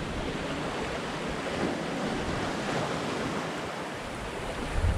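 Steady rush of sea water churning in the wake of a Hallberg-Rassy 54 sailing yacht running fast downwind under sail, with wind over the microphone.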